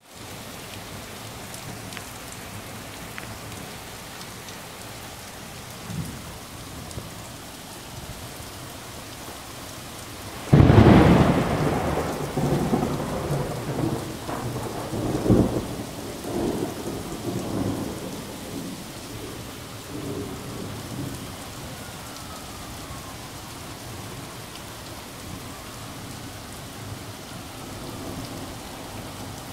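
Steady rain pouring onto pavement and parked cars. About ten seconds in, a sudden loud thunderclap breaks out, then rumbles on in several swells and dies away over about ten seconds.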